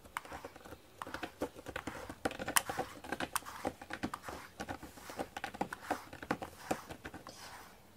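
Pet brush being drawn through a cat's fur: a run of quick, irregular scratchy ticks and rustles, a few of them sharper about halfway through.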